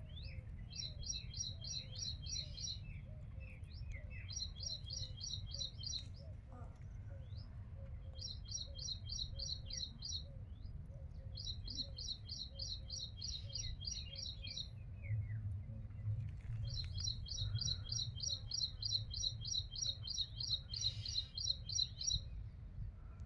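A bird repeating phrases of rapid high chirps, about four or five notes a second, each phrase lasting a few seconds with short pauses between, the longest near the end. A low steady rumble runs underneath.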